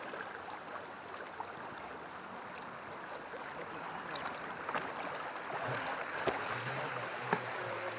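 Shallow creek water rushing and splashing around the hull of a Pro Boat River Jet RC jet boat as it runs over a rocky riffle. There are a few sharp knocks in the second half, and a low steady hum joins the rushing about three-quarters of the way through.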